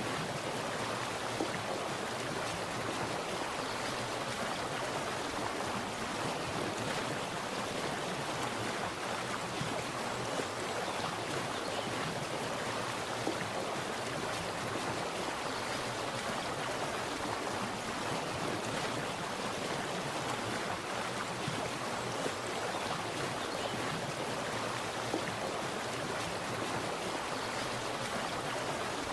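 Splashing, running water, a steady even rush with no let-up.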